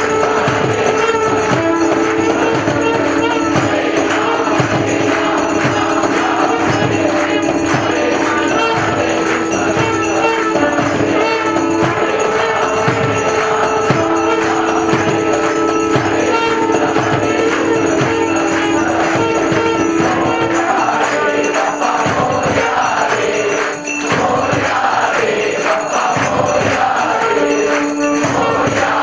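A crowd of devotees singing a Hindu aarti hymn together to Lord Ganesh, keeping time with rhythmic hand-clapping and percussion, over long held notes.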